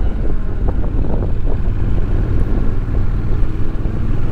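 Honda NC750X motorcycle riding along at steady speed: the parallel-twin engine's low, even drone under wind rushing over the microphone.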